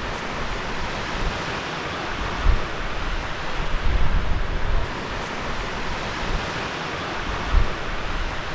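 Sea surf breaking and washing over coastal rocks, a steady rushing noise. Wind buffets the microphone in low gusts now and then.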